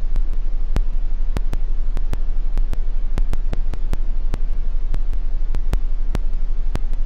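A steady low hum with a hiss of noise, cut by sharp clicks about three times a second at slightly uneven spacing.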